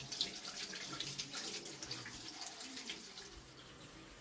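Water splashing and trickling in many small irregular splashes, dying down near the end.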